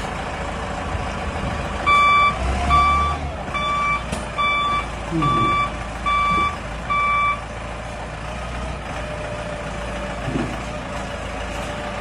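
Reversing alarm of a Caterpillar 420F backhoe loader sounding seven beeps, roughly one a second, over the steady running of its diesel engine. The beeps stop about two-thirds of the way in while the engine keeps running.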